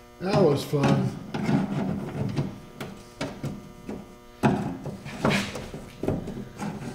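Hands and a thin metal tool working at a rusted bolt in a truck bed's sheet-metal flange: irregular scraping and rubbing with scattered knocks, the loudest a little past the middle. Near the start there is a short tone that rises and falls.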